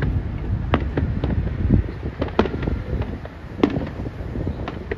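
Aerial fireworks shells bursting: several sharp bangs at irregular intervals, two of them close together about halfway through, over a steady low rumble.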